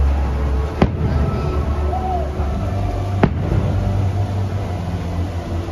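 Fireworks bursting: two sharp bangs about two and a half seconds apart, over a steady low rumble.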